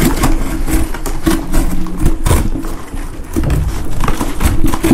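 Scissors cutting through corrugated cardboard: a run of crunching snips, with a low hum that comes and goes underneath.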